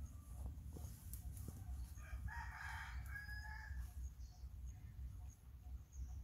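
A rooster crows once, about two seconds in, one call lasting about a second and a half, over a steady low rumble.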